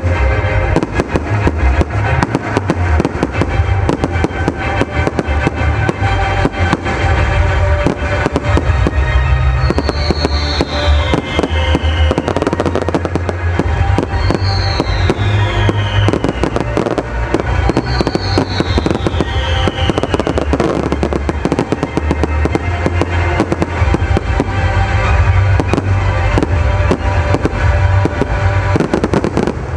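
Fireworks display: dense cracking and bangs of shells bursting, over loud music with a steady bass. In the middle, three falling whistles come about four seconds apart.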